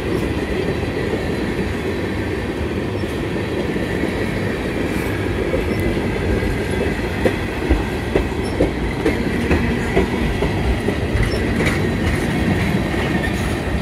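Freight train of tank cars rolling past close by: a steady rumble of steel wheels on rail. From about halfway through, sharp wheel clicks stand out, roughly two a second.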